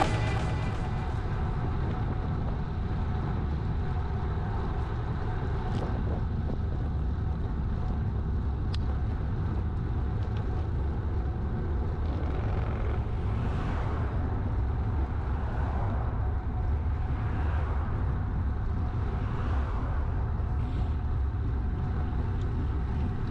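Steady wind rumble on a GoPro action camera's microphone, with tyre hiss on asphalt as a bicycle rolls along at an easy pace. The hiss swells a few times in the second half.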